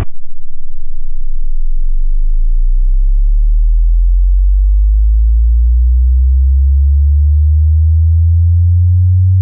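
Low-frequency sine-wave sweep from a bass (LFE) test, covering 5 to 100 Hz: a single pure tone at constant loudness that rises slowly from a deep sub-bass rumble to about 100 Hz.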